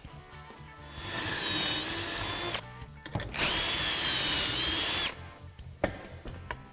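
Drill boring pocket holes through a Kreg Micro Pocket Drill Guide into half-inch drawer stock: two runs of about two seconds each, each spinning up to a steady high whine and then stopping.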